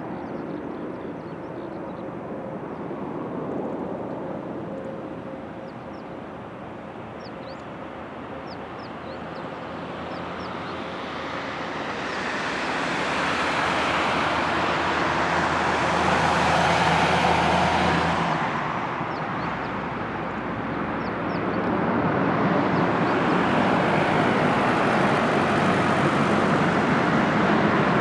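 Jet airliner on final approach passing overhead to land: a broad engine rush that swells to a peak about two-thirds of the way through, eases briefly, then builds again. Faint bird chirps sound in the first half.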